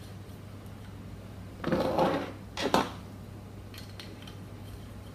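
Metal clinking and scraping of a hex key handled against bicycle rim-brake hardware: two short bouts, about two seconds in and again just under a second later. A low steady hum underneath.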